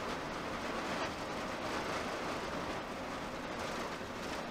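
Steady rumble and hiss of a motorhome driving at motorway speed, heard from inside the cab: road and engine noise.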